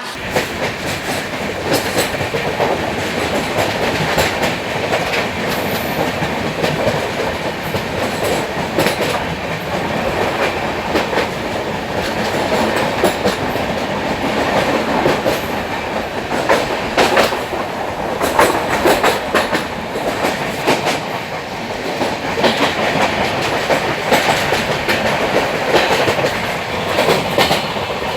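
Train running along the track, a steady rumble with the wheels clicking and clacking over the rail joints.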